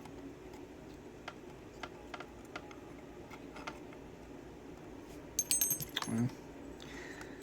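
Small loose metal lock followers and tools being rummaged: faint light clicks of handling, then a brief bright metallic jingle and clinking about five and a half seconds in, ending with a soft knock.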